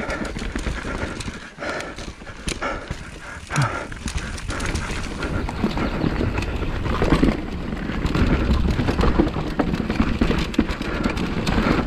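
Specialized Kenevo electric mountain bike riding down a dirt forest singletrack: tyres rolling over dirt and roots with a steady low rumble, and frequent knocks and rattles from the bike over the bumps.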